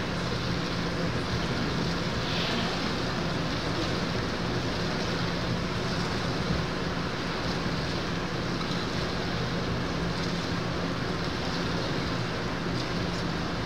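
Steady hum and hiss of an indoor swimming-pool hall's background, with a low steady tone under it and no distinct events.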